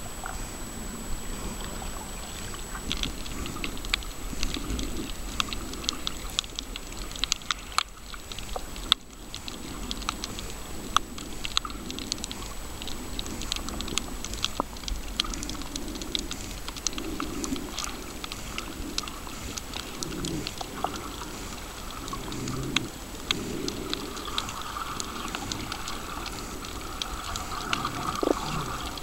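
Underwater sound from a camera held below the surface while snorkelling over a coral reef: a low, muffled sloshing of water with many scattered sharp clicks and crackles.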